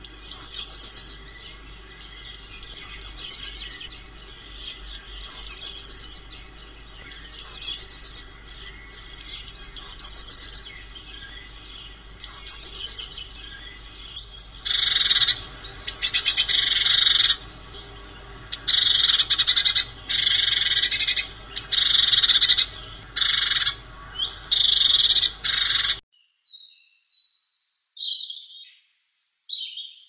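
Blue tit calling. Short phrases of high, thin notes falling in pitch repeat about every two and a half seconds, then about halfway through give way to a run of longer, harsh rattling calls about a second each. The calls cut off a few seconds before the end.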